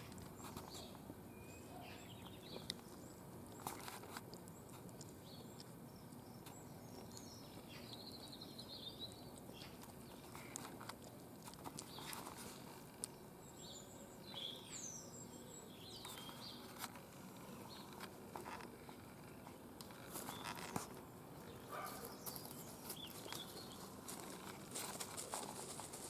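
Red foxes eating: faint, scattered clicks and soft patters of chewing and moving about over a low background hiss, with a few short high chirps around the middle.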